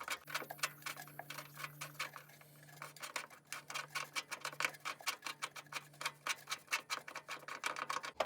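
Fast, even metallic clicking, about five or six clicks a second, over a low steady hum: hand-tool work on a hitch mounting bolt in the vehicle frame's nut.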